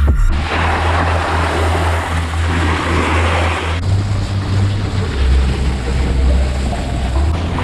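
Snowboard sliding and scraping over snow, a steady rushing hiss, with wind rumbling on the microphone. The sound changes abruptly about four seconds in.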